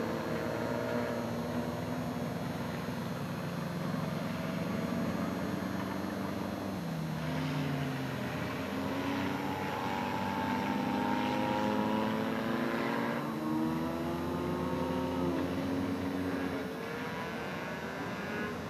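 Engines of several skid-plate race cars revving together, their overlapping pitches rising and falling as the throttles open and close.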